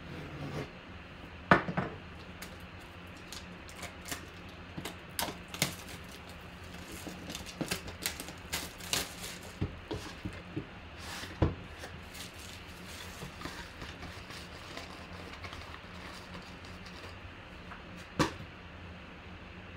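Plastic shrink wrap being cut and peeled off a Panini One hobby box: irregular crackling and clicks of the wrap and box being handled. The sharpest knocks come about a second and a half in, near the middle, and near the end, over a faint low hum.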